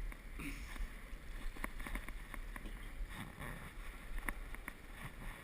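Fishing reel clicking faintly and irregularly as a hooked ray pulls against the line, over a low rumble of wind on the microphone.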